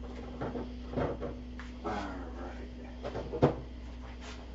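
A few light knocks and clicks of things being handled on a kitchen counter, the sharpest about three and a half seconds in, over a faint steady hum.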